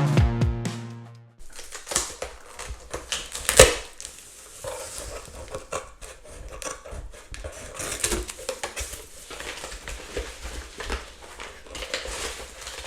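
Music fading out, then a package being handled and worked at to open it: scattered clicks, taps and rustling, with one louder click about three and a half seconds in.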